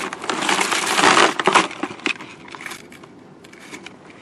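Rummaging through a plastic tote of old power cords: the cords rustle and the plugs clatter against each other and the plastic bin. The sound is loudest for the first second and a half, then thins to scattered clicks and rattles.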